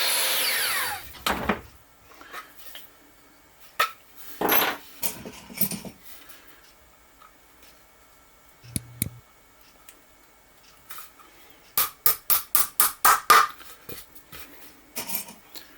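A power tool winds down and stops about a second in. Then small wooden pieces are handled with scattered knocks and clicks, and a quick run of about ten sharp taps comes about twelve seconds in.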